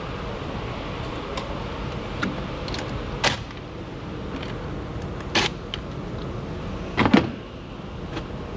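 Short bursts from a cordless ratchet loosening the 10 mm battery terminal nuts, with sharp metal clicks and a louder double knock near the end, over a steady shop hum.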